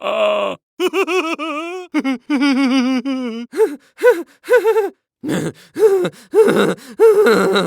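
A string of cartoon voice sound effects, one after another. First come two wobbling, warbling voice-like tones of about a second each. Then a run of short, bouncy up-and-down vocal chirps like cartoon chatter.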